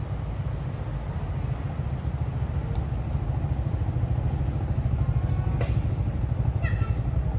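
Steady low outdoor rumble with a faint, evenly pulsing high drone over it. A single sharp click sounds about five and a half seconds in, and a few short high calls follow near the end.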